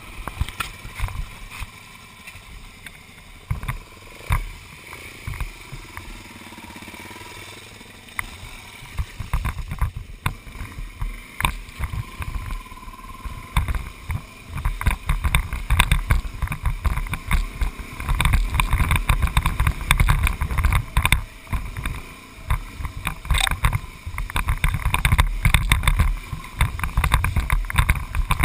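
A vehicle driving over a rough dirt road, with a low rumble and many short knocks and rattles from the bumps. It grows heavier and louder about halfway through.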